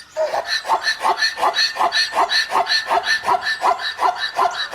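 Zebra calling: a rapid run of barking yelps, about five a second.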